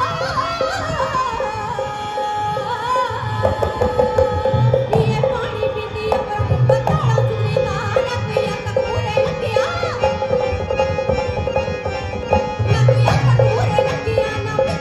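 Woman singing a Punjabi folk song through a PA, her voice bending and ornamenting over a steady held drone note, accompanied by a dholak whose strokes come in about four seconds in and keep a steady rhythm.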